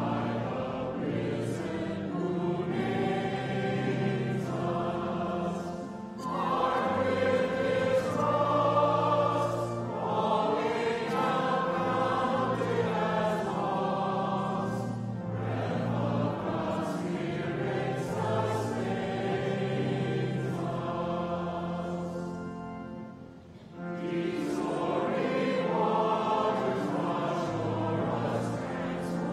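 A large congregation singing a hymn together in unison, in long sung phrases. There is a brief dip about six seconds in and a short pause near the three-quarter mark.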